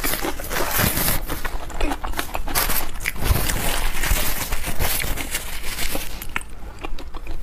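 Close-up wet chewing and lip smacks of braised pork knuckle skin, with a paper tissue rustling against the mouth about halfway through.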